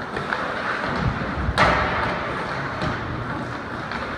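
Ice hockey game play in a rink: low thuds and one sharp crack about a second and a half in, over a steady background hubbub.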